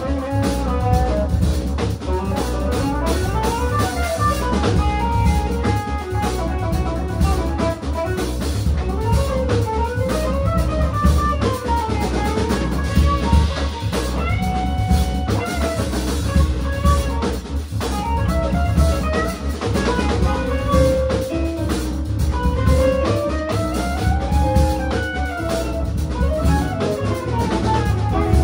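Instrumental jazz-fusion quartet playing: semi-hollow electric guitar, Nord Stage 3 keyboard, synth bass and a Gretsch drum kit, with melodic runs climbing and falling over a steady groove.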